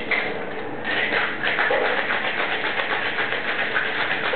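Ice cubes rattling inside a metal cocktail shaker being shaken: a fast, even rattle that gets louder about a second in.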